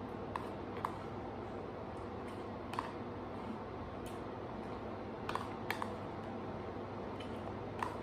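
Chopsticks clicking and tapping against a clear plastic food container while eating crumbly rice, a few scattered light clicks over a steady room hiss.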